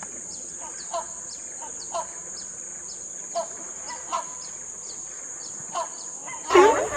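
Bird chirps repeating about once or twice a second over a steady, high insect-like drone, then a loud, wavering call near the end.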